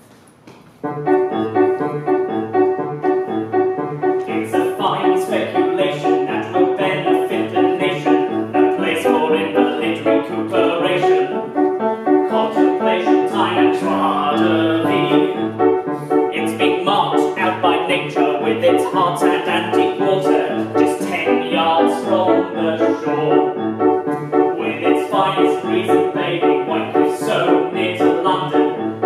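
Upright piano playing a musical-theatre song accompaniment, starting about a second in, with a man singing over it.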